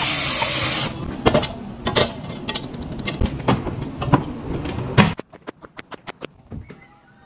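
Kitchen tap water pouring into a metal pot, stopping about a second in, followed by scattered knocks and clicks of a wall cupboard being opened and a cup taken out, then a few faint ticks.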